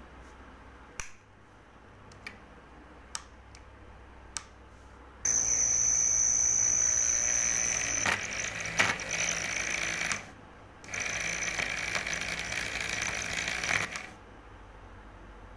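A few sharp metallic clicks, then a small electric motor running with a steady high whine. It switches on abruptly about five seconds in, stops briefly around ten seconds, then runs again until near the end.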